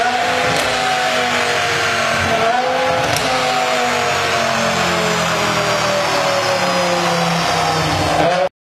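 BMW M5's V10 engine and exhaust running loud, its pitch easing slowly down with a short rise about two and a half seconds in. The sound cuts off abruptly near the end.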